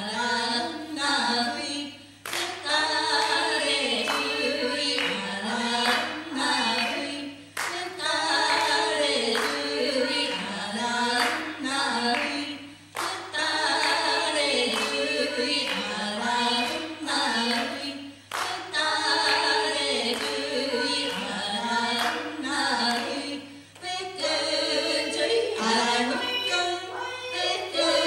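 Women's voices singing a traditional Ainu song without instruments, in short repeated phrases, with occasional sharp claps.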